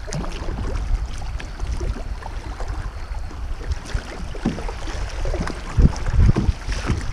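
Kayak drifting on a moving river: water lapping and gurgling against the plastic hull, over a low wind rumble on the microphone. A few paddle strokes splash in near the end.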